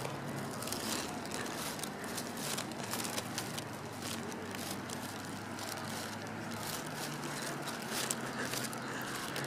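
Footsteps crunching through dry leaves, twigs and litter: a quick, irregular run of crackles over a steady low hum.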